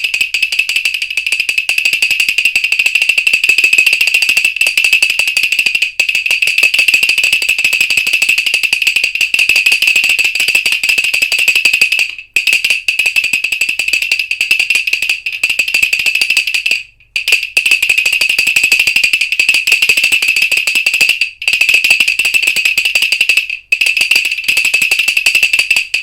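Wooden double-arm baby rattle shaken continuously, a fast dense clatter of clicks with a bright ringing tone, pausing briefly a few times.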